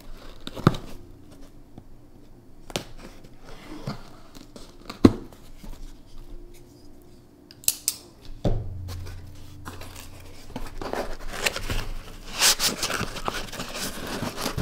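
Folding knife blade slicing packing tape on a cardboard box, with scattered sharp clicks and scrapes. Later the cardboard flaps open and the packaging rustles and crinkles.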